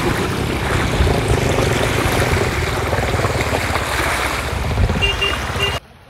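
Floodwater rushing and splashing around a vehicle driving through a flooded road, over a low rumble. A few short high beeps sound near the end, then the sound cuts off suddenly.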